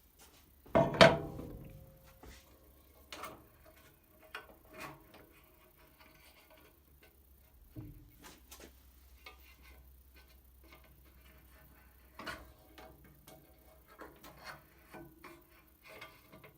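Hand work on metal fittings: scattered clicks, taps and knocks of parts and tools being handled, with one loud metallic clank about a second in that rings briefly.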